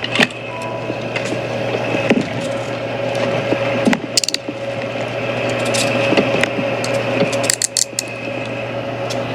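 Police body-camera audio: rustling and handling noise with scattered clicks and knocks over a steady hum.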